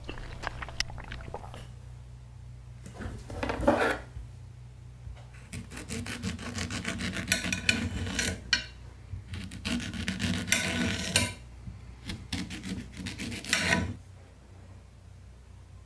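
A knife sawing through a banana, peel and all, on a ceramic plate, in four bursts of quick sawing strokes.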